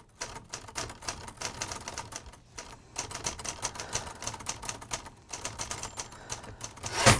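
Typewriter keys striking in quick irregular runs as a title is typed out, pausing briefly twice, with one louder strike just before the end.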